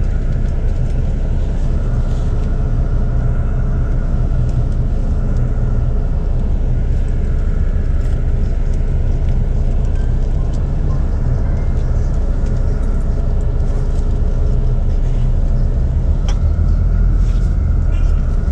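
Bus engine and road noise heard from inside the passenger cabin as the coach moves off: a steady low rumble that grows somewhat louder near the end.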